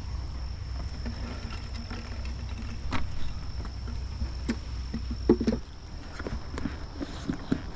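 Wooden beehive equipment being handled: a series of light knocks and scrapes, the loudest about five seconds in, over a low rumble that stops shortly after, with a faint steady high whine throughout.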